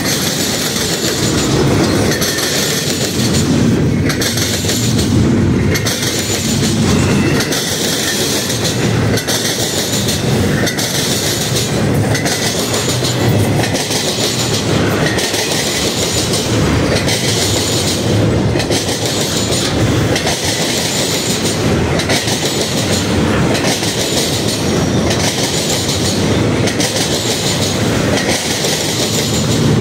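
Intermodal freight train cars rolling past: steel wheels on rail give a loud, steady rumble and rattle, with a clickety-clack beat that repeats about every second and a half.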